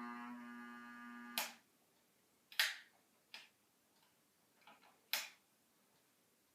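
Harbor Breeze ceiling fan motor humming loudly with a steady buzzing tone, the sign of a bad motor; it stops abruptly with a click about a second and a half in. Several sharp clicks follow, a second or so apart.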